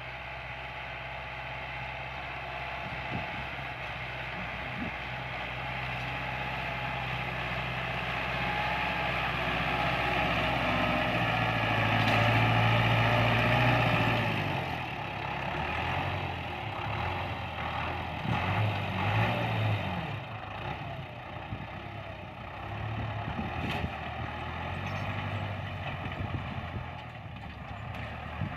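Tractor engine running, growing louder to a peak about halfway through, then dropping back and rising and falling unevenly.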